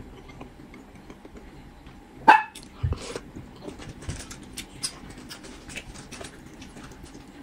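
A small dog barks once, sharply, about two seconds in, with small clicks of chopsticks on a bowl around it.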